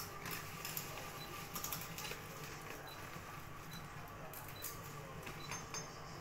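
Faint, scattered rustles and crinkles of plastic packaging being handled: a plastic-wrapped parcel and a plastic snack bag picked at by hand.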